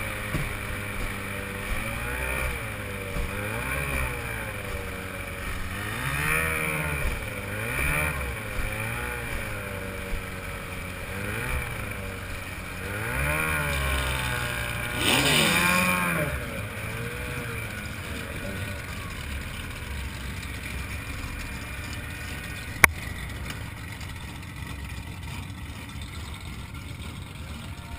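Racing outboard motor on an A-Stock hydroplane running at low speed, its pitch rising and falling in short throttle blips every couple of seconds. The engine then settles lower and fades away in the second half, and a single sharp click is heard near the end.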